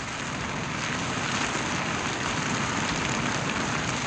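Fire sound effect: a steady rushing crackle of flames.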